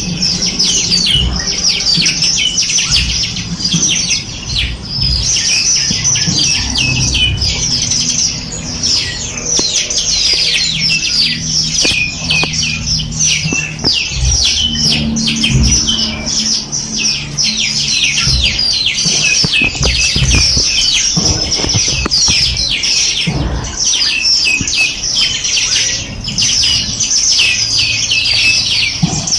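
A dense chorus of many small songbirds chirping and twittering without pause: quick, high, overlapping chirps and trills.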